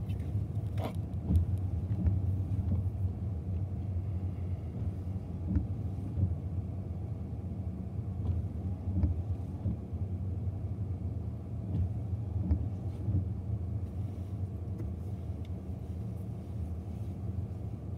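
Steady low rumble of a BNSF double-stack intermodal freight train rolling past, heard from behind rain-spotted glass, with scattered faint clicks.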